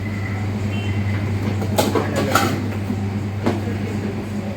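Kitchen background: a steady low hum with a few light knocks and clatters, the sound of ingredients and utensils being handled.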